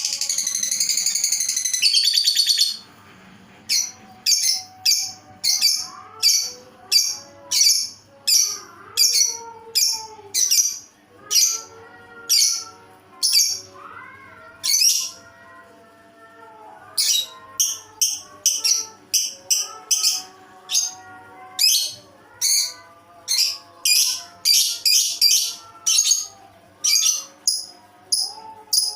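Lovebird calling: a fast, loud, high chatter for the first two and a half seconds, then a long series of short, sharp, high chirps, about one or two a second, with a short break midway. The keeper considers the voice unusual. Faint music plays underneath.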